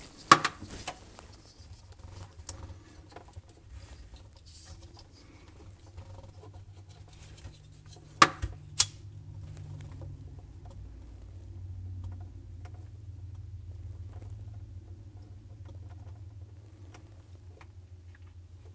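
Handheld lighter struck with two sharp clicks about eight seconds in, then its flame burning with a low steady rumble as it shrinks heat-shrink tubing over soldered wire splices. Light clicks and scratches of wires being handled around it.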